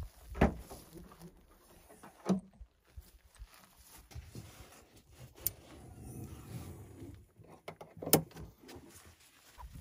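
Toyota 4Runner rear liftgate unlatched and swung open, followed by a few clunks and clicks of hands working the hatch and the cargo-area trim panel, the loudest knock near the end.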